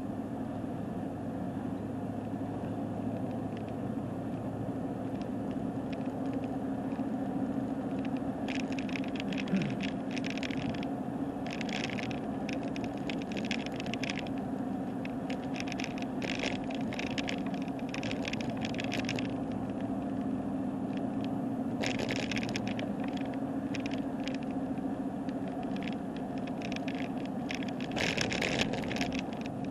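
Steady drone of a car driving on the road, with bursts of rattling from the camera shaking on rough road. The rattles come and go from about eight seconds in and are strongest near the end.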